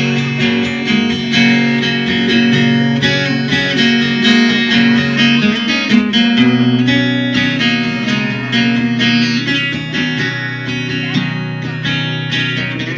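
Amplified acoustic guitar played through PA speakers, picking an instrumental break in a slow love song, with held low notes under the picked notes.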